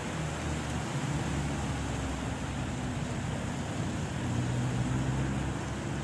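Steady wind blowing through palm trees, a rustling hiss over a low, wavering rumble of wind on the microphone.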